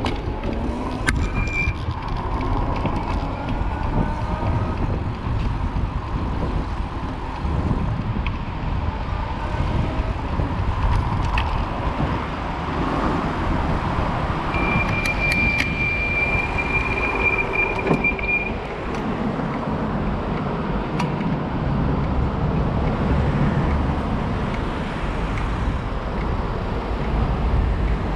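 Steady rumble of city street traffic heard from a moving bicycle. A steady high tone sounds for about four seconds midway.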